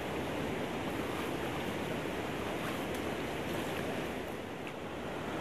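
Steady rushing of river water, with a few faint ticks in the middle.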